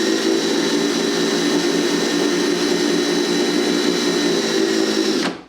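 Drill motor running steadily in reverse with a screw-extractor bit, trying to back out a stripped screw head, with a thin high whine over a pulsing hum. It cuts off suddenly near the end.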